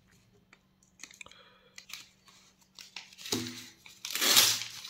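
Paper mailer envelopes handled on a table: scattered light crinkles of paper, then a louder rustle of the paper a little after four seconds in.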